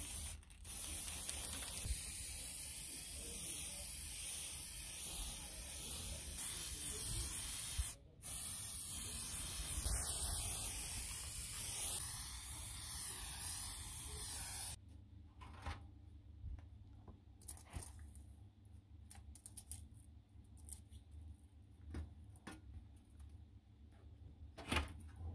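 Aerosol spray paint hissing steadily from the can, with short breaks about half a second and eight seconds in. It stops about fifteen seconds in, leaving only faint small knocks and rubs as a rusty sheet-metal panel is handled.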